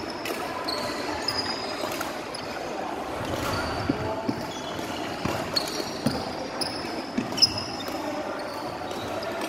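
Badminton rally on a wooden sports-hall court: rackets striking the shuttlecock with sharp pops at irregular intervals, and sneakers squeaking briefly on the floor, over the echoing background noise of a busy hall. The loudest hit comes about three-quarters of the way through.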